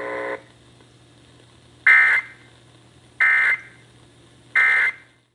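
Emergency Alert System end-of-message data burst: three short bursts of warbling digital tones, about a second apart, marking the end of the alert. A steady droning tone cuts off about half a second in.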